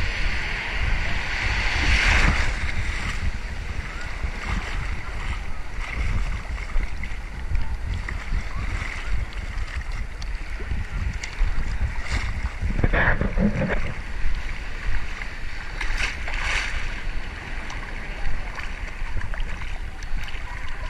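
Ocean surf sloshing and lapping right at the camera's microphone, with a few louder splashes, about 2, 13 and 16 seconds in. Wind buffets the microphone in a steady low rumble.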